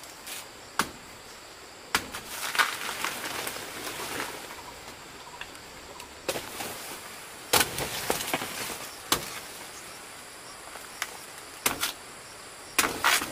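Irregular sharp knocks and clicks with rustling in between, as from handling and working objects by hand. A faint steady high-pitched tone runs underneath.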